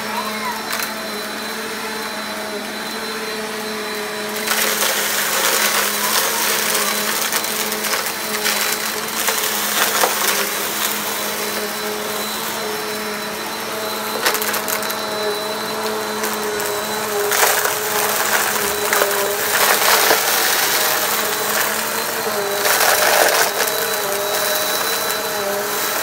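Bissell PowerForce upright vacuum running with a steady motor hum over carpet. About four seconds in it starts sucking up dry scattered debris, which makes a louder crunchy rattle of particles with scattered sharp clicks as bits are pulled through the head into the bin.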